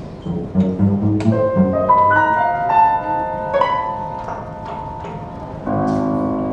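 Contemporary chamber music for violin, cello, clarinet and piano played live: a rising run of piano notes that ring on and overlap, then a louder held chord comes in near the end.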